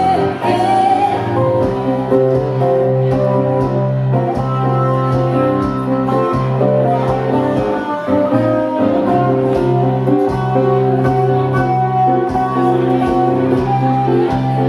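Acoustic guitar and a Roland stage piano playing a song together live: the guitar is plucked and strummed over held keyboard chords and a sustained low note. The low note drops out about a second before the end.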